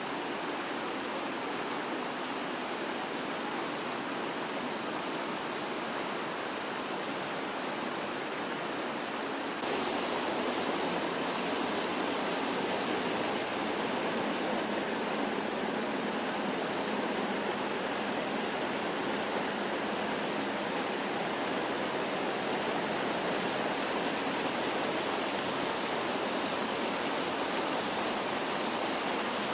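Water from a burst water main rushing and cascading over a kerb and down a landscaped slope: a steady rushing noise that gets louder about ten seconds in.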